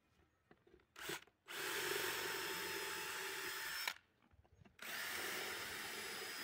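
Cordless drill driving screws into wooden boards. There is a brief burst about a second in, then two steady runs of a couple of seconds each, with a pause of about a second between them.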